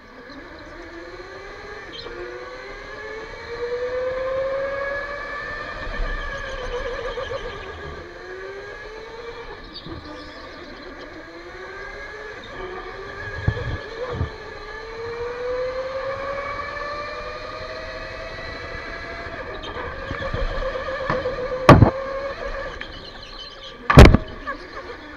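Electric go-kart motor whining at speed, its pitch rising as the kart accelerates down each straight and falling away into the corners, over and over. Near the end two sharp knocks, the second the loudest, as the kart jolts.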